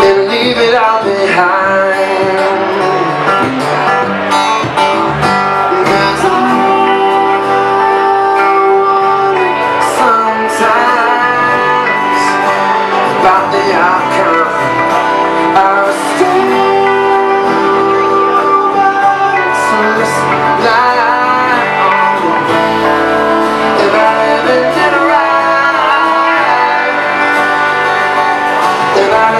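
Live band music: a male singer singing over strummed acoustic guitar, with electric guitars, bass and drums. The singer holds long notes twice, a few seconds each.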